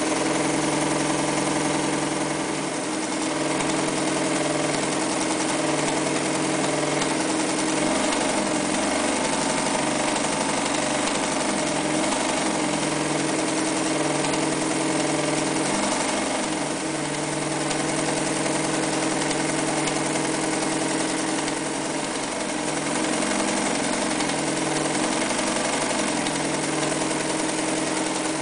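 Early-1960s Mitsubishi MAZ4 all-metal sewing machine running steadily under its electric motor, the needle stitching decorative rows through cloth with a constant motor hum and mechanical clatter. The speed eases slightly a few times.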